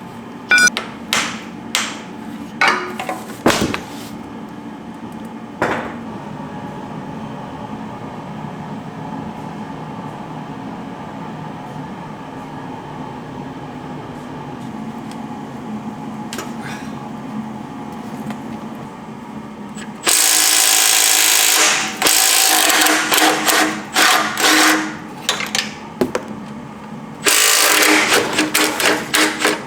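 A few sharp metallic tool clicks and knocks, then a steady low hum. From about two-thirds of the way in, a loud power tool runs in several stop-start spurts.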